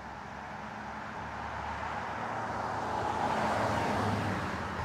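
Volkswagen Tiguan SUV driving by, tyre and engine noise swelling to a peak about three and a half seconds in, then easing slightly.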